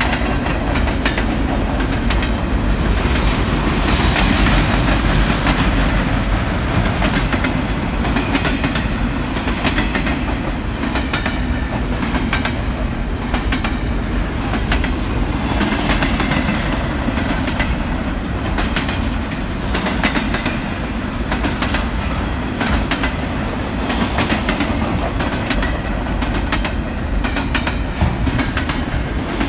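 Train rolling past: a steady rumble of wheels on rail, with frequent sharp clicks as the wheels cross rail joints.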